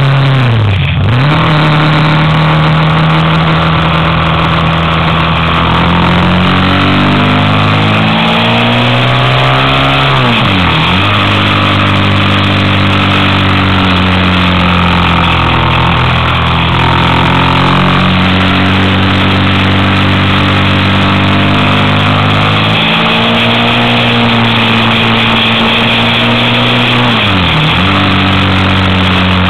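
Motorcycle engine pulling up a winding climb: its pitch rises as it accelerates, steps down at gear changes, and three times dips sharply and comes straight back up as the throttle is closed for a bend and reopened. A steady rush of wind and road noise runs underneath.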